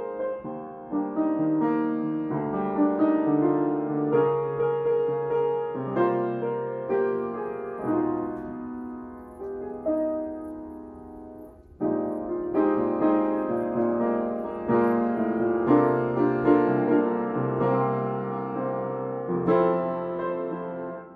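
Background piano music, notes struck and left to ring. The playing fades away about ten seconds in, and a new phrase comes in suddenly about two seconds later.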